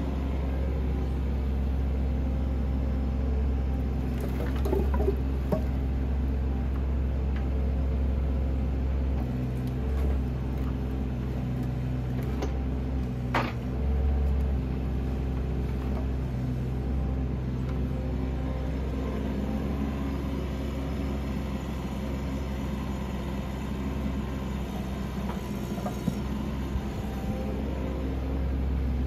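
Bobcat 319 mini excavator's diesel engine running steadily under hydraulic load as the boom and log grapple work, with a few knocks, the sharpest about 13 seconds in.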